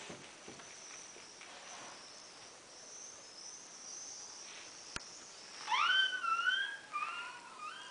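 Irish setter puppy whining: a thin, wavering whine that starts about two-thirds of the way in and slides up and down in pitch. A single sharp click comes just before it.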